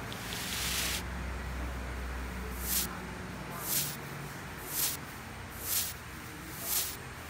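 A series of short, high swishes, each falling in pitch, about one a second, over a low steady hum, after a brief hiss near the start.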